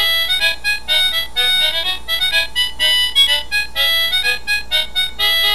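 Electronic melody from a children's sound book's built-in speaker: a bright tune of quick, short notes that plays without a break.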